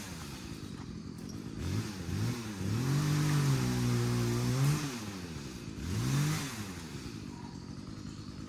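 Two-stroke chainsaw revved up, held high for about a second and a half, then let back down, with a second short rev about six seconds in before it settles to idle.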